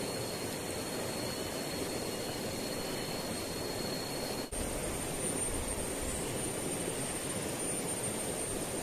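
Steady rushing outdoor noise with a thin, high, steady whine above it. About four and a half seconds in there is a brief dropout, after which the whine sits higher.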